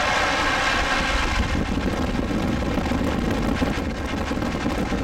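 Train passing: a steady whine of many even tones that gives way, about a second and a half in, to a low rumble.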